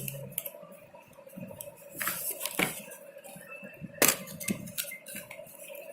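Small clicks and taps of a new smartphone's box, packaging and accessories being handled, the sharpest click about four seconds in, over a faint steady hum.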